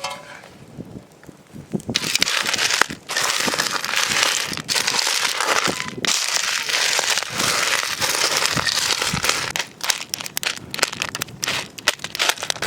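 Open wood fire crackling loudly: a dense, continuous crackle that breaks up into separate sharp pops for the last few seconds.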